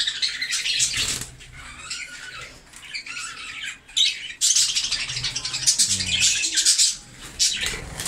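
Budgerigars chattering and squawking in busy bursts, with a flutter of wings from a budgie perched on a hand.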